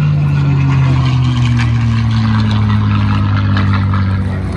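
Aircraft engine droning loudly, its pitch sliding slowly lower.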